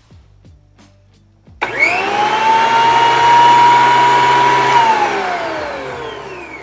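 Wen benchtop jointer's motor and cutterhead switched on for a first test run: about a second and a half in it starts suddenly and spins up to a steady high whine, runs for about three seconds, then is switched off and coasts down with a falling pitch.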